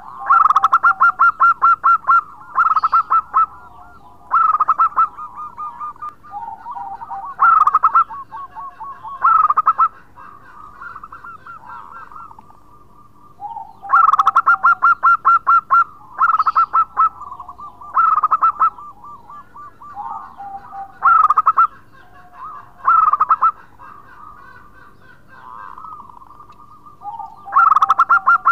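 Zebra dove (perkutut) singing loudly: repeated phrases of rapid staccato cooing notes, each opened by a lower note. The phrases come in two bouts of several phrases each, about fourteen seconds apart.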